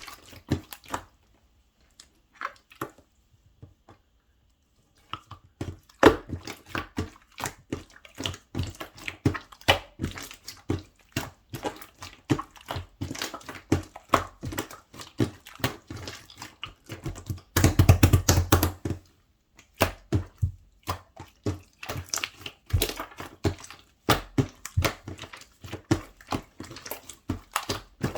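Slime being squeezed and kneaded by hand: rapid sticky clicks and wet pops, starting after a few seconds of quiet, with a louder, denser squish about two-thirds of the way through.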